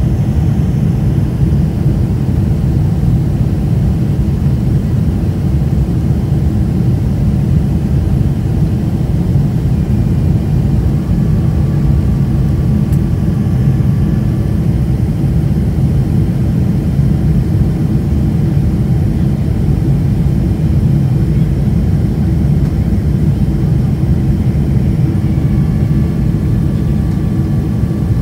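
Steady low rumble of a Boeing 747's jet engines and rushing air, heard from inside the passenger cabin.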